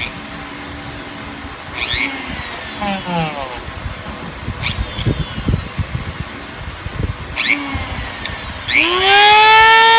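Handheld high-speed rotary tool (Dremel type) switched on in short bursts. Its motor whirs up and winds down again three times, then about nine seconds in it spins up to full speed and runs with a loud high whine.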